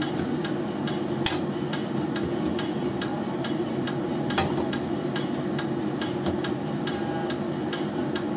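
Turon sizzling in hot oil in a wok, a steady frying hiss with irregular small crackles and pops. Two sharper knocks, about a second in and again about four seconds in, as the slotted spoon turns the rolls.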